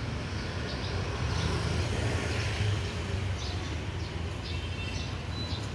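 Steady low rumble of road traffic, with short high chirps now and then.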